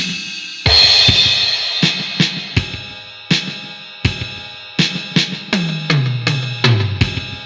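Electronic drum kit sound from an M-VAVE Lost Tempo drum pad being played: a crash cymbal about a second in, then scattered kick and snare strokes, and near the end a fill down through lower and lower toms.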